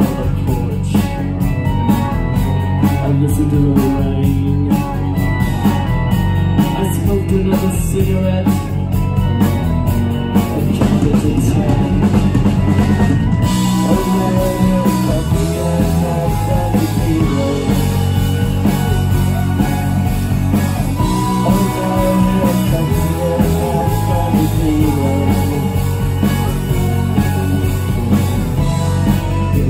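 Live rock band playing: electric and acoustic guitars, bass and drum kit, with a lead vocalist singing.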